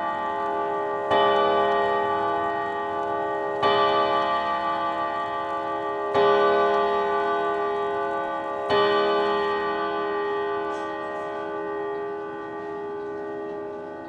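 Vedette long-case clock striking the hour: its hammers hit the long steel rod gongs in four even, ringing strokes about two and a half seconds apart. The last stroke comes near nine seconds in and its deep, long ring slowly dies away.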